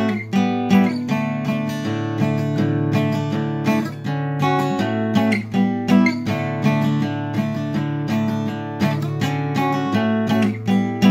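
Acoustic guitar strummed in a steady rhythm, moving between chords.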